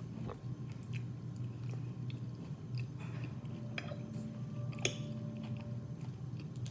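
Close-miked chewing of seafood-boil food, with small wet clicks and one sharper click about five seconds in, over a steady low hum.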